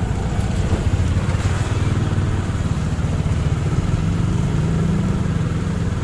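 Small motorcycle engine running at low riding speed: a steady low drone that rises slightly about four seconds in, with road and wind noise around it.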